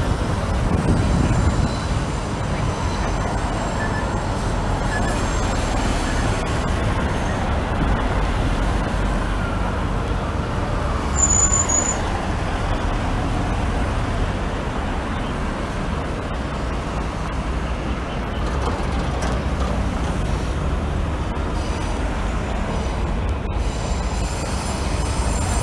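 Busy city street ambience: steady road traffic noise with the hubbub of a crowded pedestrian area. A short high-pitched electronic tone sounds briefly a little before the middle.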